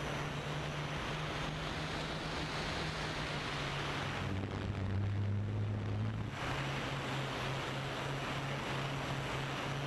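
DJI quadcopter's motors and propellers humming steadily, heard from the camera mounted on the drone, with wind noise on the microphone. About four seconds in, the hum drops lower in pitch for about two seconds, then comes back up.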